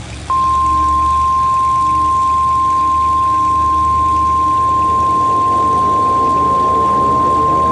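Emergency broadcast alert tone: a single loud, steady, high-pitched beep that starts about a third of a second in and holds without change, over a low rumble. Near the end, faint rising sweeps come in underneath.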